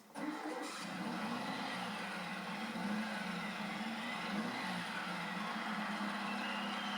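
Volkswagen bus's rebuilt air-cooled flat-four engine running steadily, its pitch wavering slightly.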